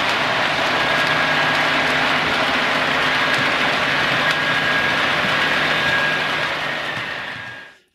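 Steady engine-like running with a constant low hum and a high whine, fading out near the end.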